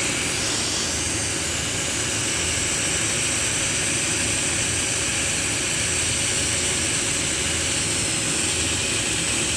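Steady, loud hiss of gas rushing through air-conditioner refrigerant pipework, with a low rumble underneath.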